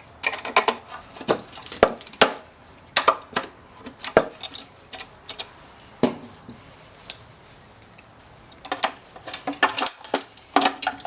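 Hand tools clicking and clattering against the plastic and metal parts of an electric scooter as a small switch is worked loose and pulled out. The knocks come irregularly, thin out in the middle and crowd together again near the end.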